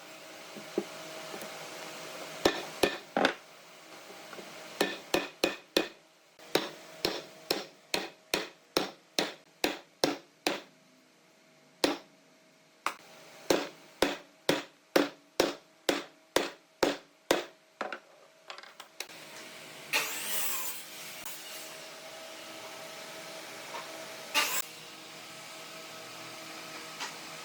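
Hammer blows on wood: a long series of sharp strikes, about two a second, that stops about two-thirds of the way through, followed by a steady hum with a couple of brief scrapes.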